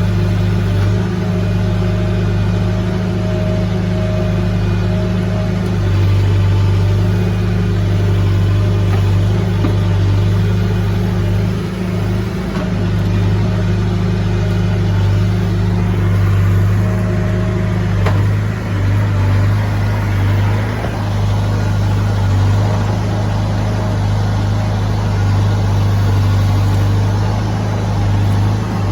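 Heavy-equipment diesel engine running steadily at working speed with a deep, even drone, dipping and wavering briefly about two-thirds of the way through.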